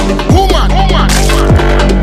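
Electronic music laid over the footage, with a steady deep bass and repeated swooping pitch slides that fall away.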